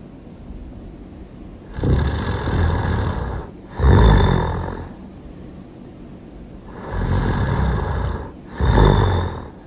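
A person snoring really loud, twice. Each snore is a longer drawn-out part followed at once by a shorter, louder one, and there is a gap of about two seconds between the two snores.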